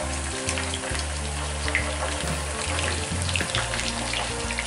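Chicken pieces sizzling and crackling in hot olive oil with garlic in a frying pan, as they are laid in by hand. Background music with a low bass line plays throughout.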